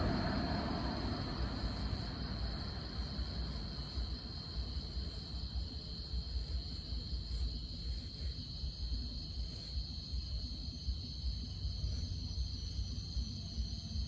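Crickets trilling in one steady, high, unbroken band, over a low rumble. A broad wash of noise at the start fades away over the first few seconds.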